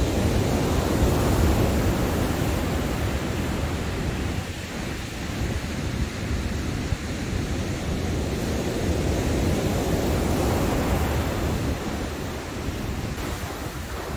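Waves breaking in the surf, with wind buffeting the microphone in a low rumble. The noise swells about a second in and again around ten seconds in, as sets of waves come through.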